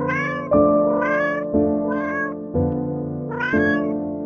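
A cat meowing repeatedly, about four short meows, each rising then falling in pitch, over background music with chords changing about once a second.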